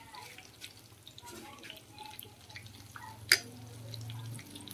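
Battered banana pieces deep-frying in a pan of hot oil: scattered crackling and popping, with one sharp clink about three seconds in.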